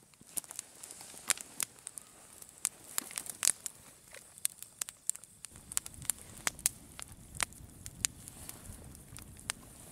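Wood campfire crackling, with irregular sharp pops and snaps of burning wood throwing sparks. A low steady rush comes in under the pops about halfway through.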